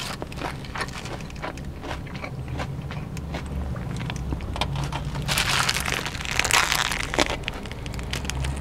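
Close-miked chewing and crunching of a nori-wrapped sushi burrito, with many short mouth clicks, over a steady low hum of car background noise. About five seconds in, a louder rustling hiss swells for a couple of seconds.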